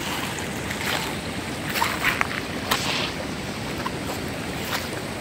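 Water splashing and sloshing as a man wades through a river pool hauling in a trammel net, with a few sharper splashes in the middle.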